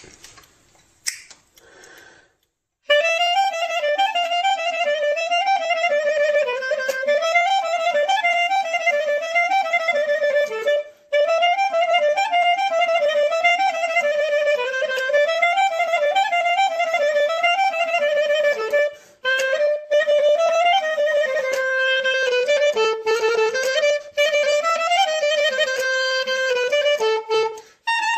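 Solo clarinet playing a fast, ornamented Bulgarian rachenitsa tune in quick running notes, starting about three seconds in, with a few brief gaps in the line. Before it starts, a couple of faint knocks.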